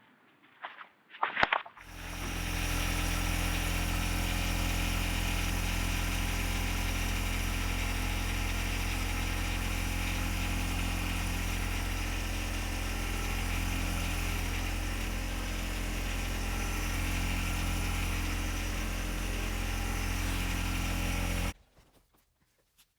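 Small engine idling steadily, with no revving; it comes in about two seconds in and cuts off abruptly near the end.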